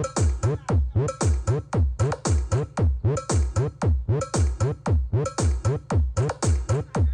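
Electronic dance remix with a heavy, fast, steady kick drum whose pitch drops on every hit, played loud through a mobile sound system with twelve subwoofers during a sound test.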